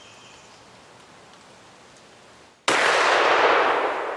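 A GForce Filthy Pheasant 20 gauge shotgun firing one shot about two-thirds of the way in: a sudden loud blast that dies away slowly over a second or more.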